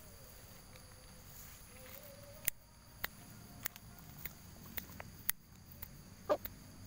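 Young Siamese game chicken scratching and pecking in dry straw and litter: a string of sharp, irregular crackles and taps, about one every half-second through the second half, with a louder crackle near the end.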